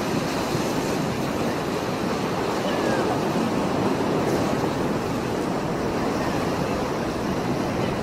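Rough sea surf breaking and washing onto a rocky shore: a steady, loud rush of churning water.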